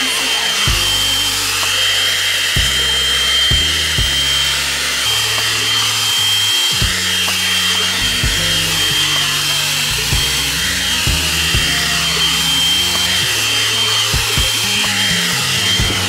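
Hot-air round brush dryer running steadily: rushing air with a fixed high motor whine. Background music with a stepping bass line plays underneath.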